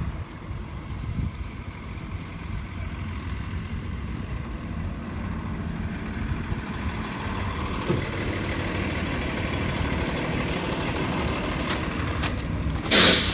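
Steady low rumble of a road vehicle, heard from inside while it travels. A loud, sudden sound with a falling pitch breaks in near the end.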